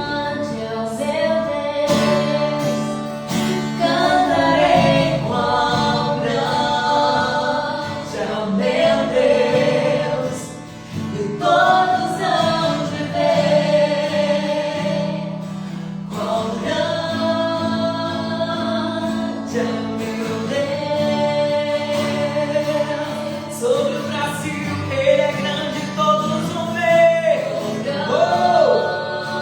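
Gospel worship song: several voices singing long held notes together over a steady instrumental backing.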